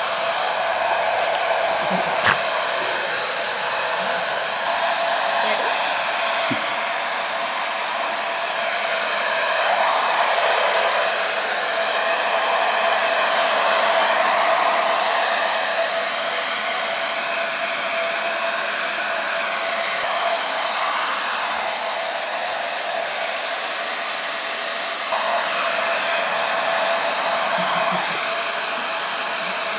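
Hand-held hair dryer blowing continuously while a Shiba Inu's coat is dried: a steady rushing air sound with a constant whine, swelling and easing slightly as the dryer is moved about. A single sharp click comes about two seconds in.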